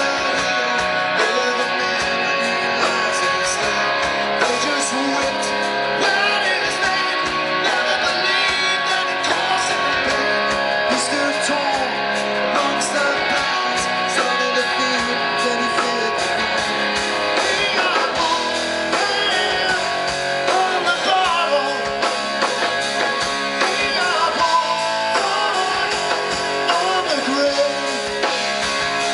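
Live rock band playing: electric guitar over bass guitar and drums, heard from the audience in a tented venue.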